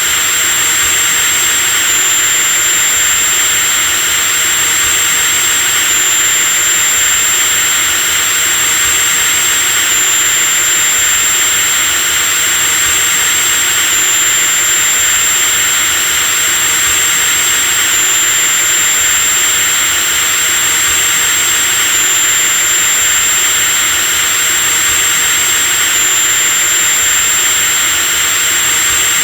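Electric drill motor running continuously at a steady speed: a high whine over a steady rushing hiss, the whine shifting slightly in pitch every few seconds.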